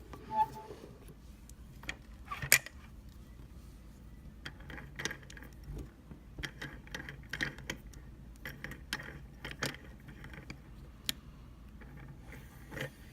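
Small metal clicks and clinks at irregular intervals as a lock and metal tools are handled and set up, likely the lock being mounted in a bench vise; the sharpest clink comes about two and a half seconds in.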